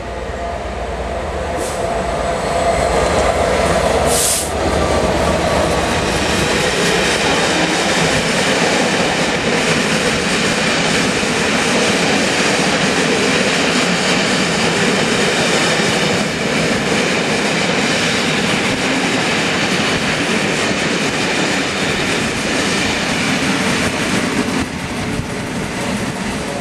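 A Class 67 diesel locomotive runs through at speed, its two-stroke V12 engine heard at first. A long rake of passenger coaches follows, with a loud, steady rolling rumble and the clatter of wheels over rail joints, plus a brief sharp burst of noise about four seconds in. The sound eases off near the end as the rear Class 67 draws away.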